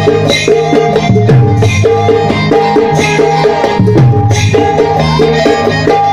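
Indian folk ensemble playing live: hand drums keep a steady rhythm, their bass strokes bending in pitch, under a repeating melody line.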